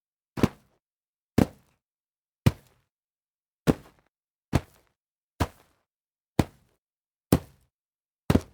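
Sound effect of feet landing on dirt after a jump: a short thud with a brief gritty tail, repeated nine times about once a second with silence between.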